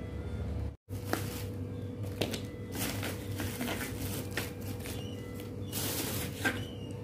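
Plastic sachets of coconut milk crinkling and tapping as they are dropped one by one into a plastic basket, a run of short irregular rustles and clicks over a low steady hum. The sound cuts out completely for a moment about a second in.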